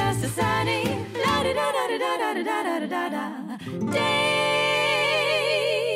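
Background song: a singer's voice over plucked strings, ending on one long held note with a wavering vibrato over a sustained chord.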